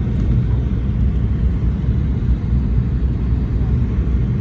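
Steady low rumble of a jet airliner's engines and airflow heard inside the cabin on final approach, just above the ground before touchdown.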